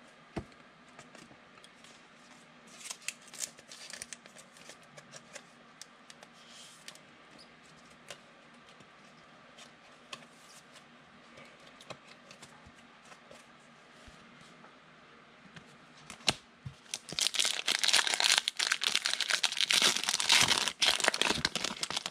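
Soft rustles and light clicks of trading cards being handled, then near the end a loud spell of crinkling and tearing as a Donruss football card pack wrapper is torn open.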